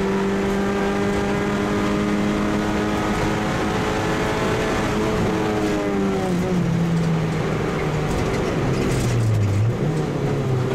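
Kia pro_cee'd rally car's engine heard from inside the cabin, held steady at high revs flat out along a straight, then the revs fall about halfway through as the driver backs off for a bend, dipping lower and picking up again near the end.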